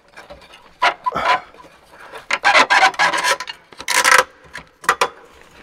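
Old heater blower fan motor being worked loose and pulled out of its rusty housing: irregular bouts of scraping and rubbing as parts grind against each other.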